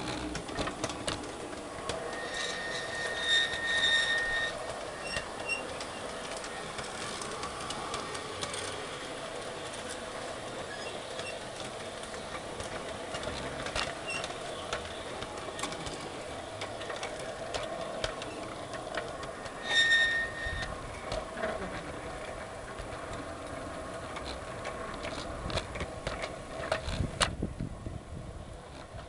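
Garden-railway model train on LGB track, heard from a camera riding on it: a steady motor and wheel running noise with frequent clicks from the track. Short high-pitched wheel squeals come about two seconds in and again about twenty seconds in. The running sound drops away near the end.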